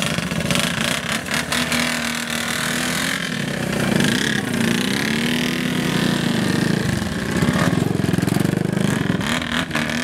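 Several motorcycle engines running together, revving up and down as the bikes pull away one after another.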